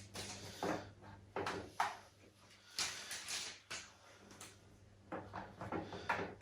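Plastic parts of a Fisher-Price baby rocker being handled and clipped together: a string of short, irregular clicks, knocks and rustles.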